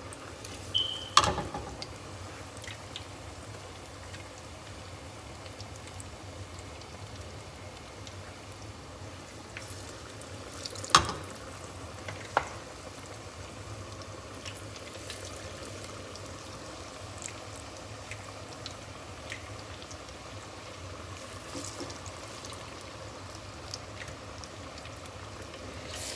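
Chicken strips deep-frying in hot oil, a steady sizzle, with a few sharp clacks from kitchen tongs, the loudest near the middle.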